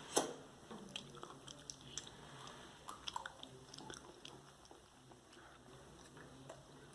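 A person chewing a mouthful of beef and vegetable stir-fry, with faint, scattered small clicks and crunches.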